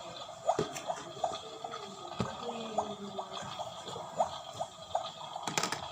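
Water dripping and trickling, with short plinking drops falling a few times a second. A quick cluster of clicks or knocks comes near the end.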